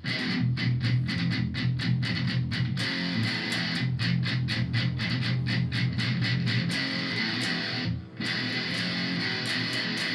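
Electric guitar played through a Korg A5 multi-effects unit on a distorted patch, with the EQ's bass turned all the way down to -7 so the low end is cut. A fast picked riff of many even strokes, with a brief break about eight seconds in.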